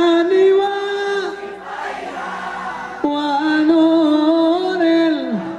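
A man chanting a prayer into a microphone in long, held, ornamented notes: two drawn-out phrases with a gap of about two seconds between them, the second sliding down in pitch as it ends.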